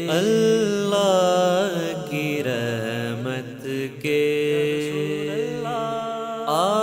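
A man singing an Urdu naat, drawing the line out in long, wavering melismatic phrases over a steady held backing drone.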